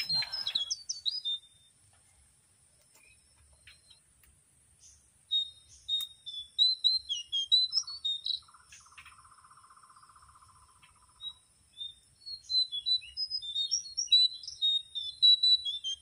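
Small birds chirping in bursts of quick high notes, with a buzzy rattling call for a few seconds in the middle.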